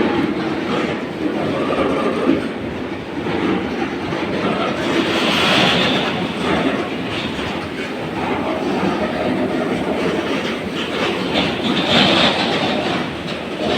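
Goods train rolling past, its wagons' wheels clattering steadily over the rail joints.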